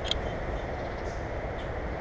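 Steady low rumble of outdoor background noise, with a brief sharp high tick just after the start.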